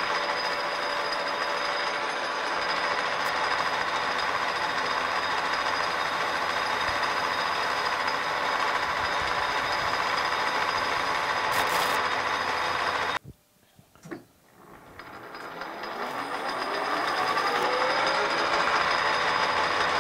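Metal lathe turning an aluminium cylinder-head blank, the cutting tool working in to form a shoulder on the boss: a steady motor and cutting noise with a few steady tones. About thirteen seconds in, the sound cuts out abruptly. It comes back over the next few seconds with a rising whine as the spindle picks up speed.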